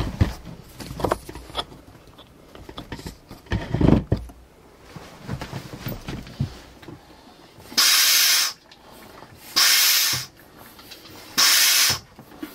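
A hand-pumped vacuum oil extractor being worked: three strokes of the pump handle about two seconds apart, each a short loud hiss of air, building vacuum to draw old engine oil up a tube from the dipstick hole. Before the pumping, a few knocks and clatters of handling.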